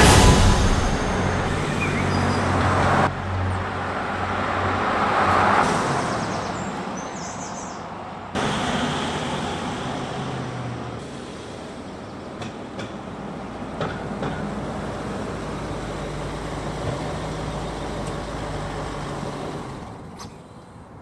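Motor vehicle running, with road and traffic noise, heard in separate pieces that change abruptly about three and eight seconds in; it fades down near the end.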